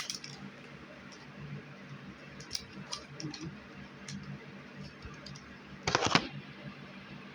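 Small items being handled: scattered faint clicks and taps, with one louder rustle about six seconds in.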